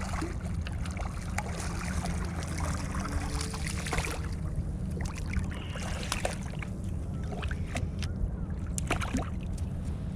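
Water lapping and slapping against a kayak's hull, with a steady low rumble of wind on the microphone and many scattered small clicks and knocks.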